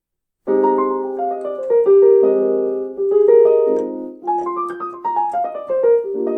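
Roland GO:KEYS 61 keyboard playing a piano voice through its built-in speakers: downward runs of notes over held chords, starting suddenly about half a second in.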